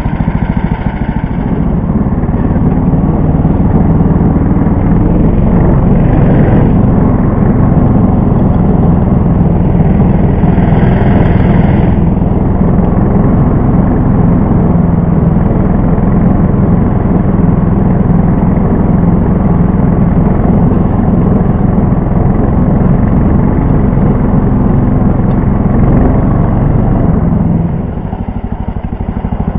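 Engine of a Лидер 3Н motorized snow tow unit running steadily under load as it pulls a sled over snow. It eases off a little near the end.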